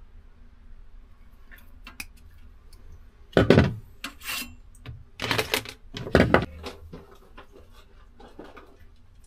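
Handling noise from working a thin wire and hand tools around metal pipes and a strap: small clicks and rustles, with a few louder rubbing knocks between about three and seven seconds, the loudest about three and a half seconds in.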